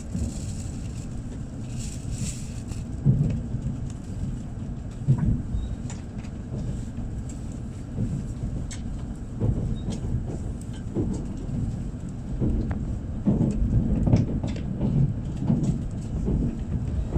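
Low, uneven rumble with a few thumps, the running noise of a train.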